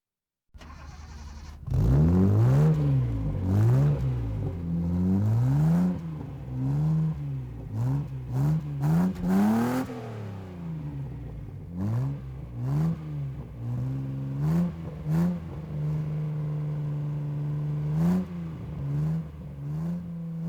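Sports car engine being revved over and over, its pitch rising and falling with each blip of the throttle. It settles into a steady idle for a few seconds, then is blipped a few more times near the end.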